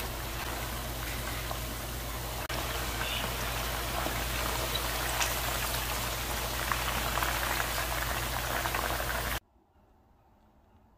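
Chicken pieces deep-frying in hot oil: a steady, dense sizzle full of fine crackles and small spitting pops, over a low hum. It cuts off abruptly about nine seconds in, leaving near quiet.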